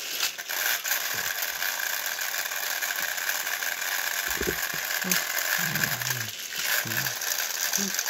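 Battery-powered toy train engines' motors and plastic gears whirring steadily while the engines strain against each other in a pushing contest.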